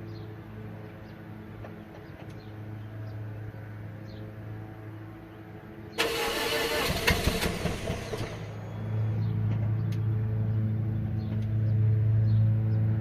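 Old Toyota Corolla heard at the exhaust during a hard start: about six seconds in the engine is cranked with a sudden loud burst of noise for a couple of seconds, then it catches and runs with a steady low hum.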